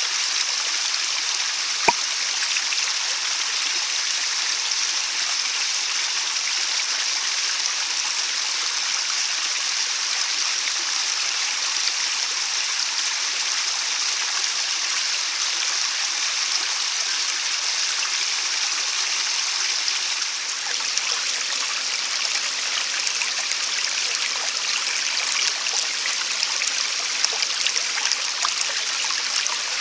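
A mountain headwater stream running steadily, an even rushing hiss of water. There is a single sharp click about two seconds in.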